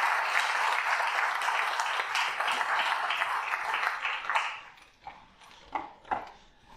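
Audience applauding, dying away about four and a half seconds in, with a few last scattered claps after.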